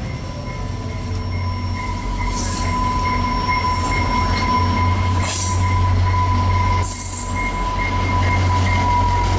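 VIA Rail passenger train, led by diesel locomotive 6412, slowing into a station: a steady high-pitched squeal from the wheels and brakes over the low drone of the locomotive, with a few short hisses.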